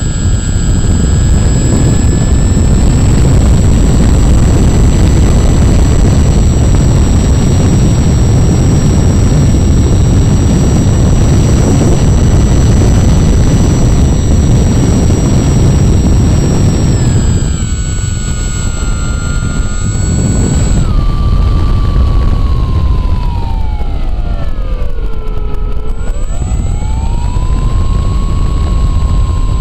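Onboard sound of a Hobby King Wicked Wing flying wing in flight: wind rushing over the camera's microphone with the steady whine of its nose-mounted electric motor and propeller. Past halfway the whine changes and drops, and near the end it dips lower and rises back as the throttle is eased and reopened.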